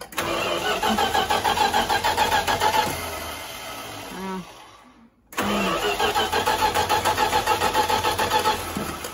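1978 Dodge pickup's engine being cranked by the starter in two tries, a rhythmic chugging that turns over without catching. The first try fades out, and the second starts about five and a half seconds in. The engine is flooded with gas from pumping the carburetor, so it does not fire up.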